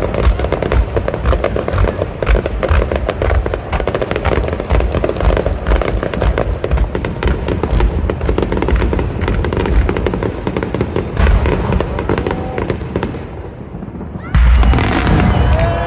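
Fireworks barrage: many aerial shells bursting in quick, overlapping succession, deep booms mixed with crackling. The barrage thins briefly near the end, then one sudden loud burst comes.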